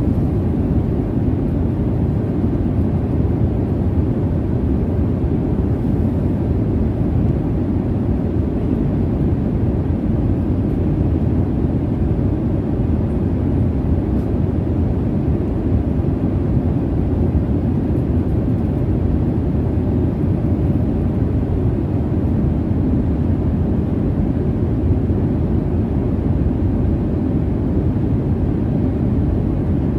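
Steady low roar of jet airliner cabin noise in cruise, a constant deep rumble with no changes or distinct events.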